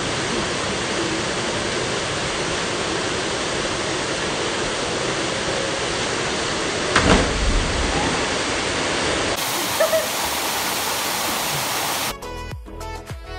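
Steady rushing of a waterfall, broken by a single brief thump about seven seconds in. Near the end the water sound cuts off and background music begins.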